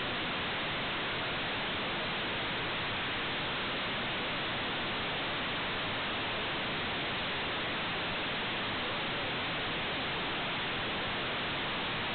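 Steady, even hiss of static from an IP security camera's audio channel, with no voices or other sounds standing out from it.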